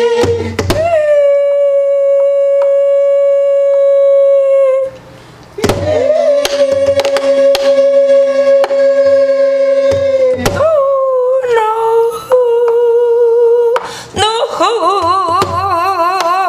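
A woman sings gueum, Korean wordless vocables, in long held notes. She marks each new phrase with a stroke on a buk barrel drum and adds light taps in between. The last note, near the end, wavers with a wide vibrato.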